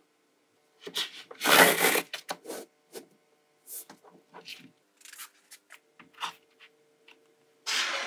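Small magnetic balls clicking and rattling against one another as hands press and straighten the edges of a flat slab built from them. Irregular small clicks, with a longer, louder rattle about a second and a half in and another near the end.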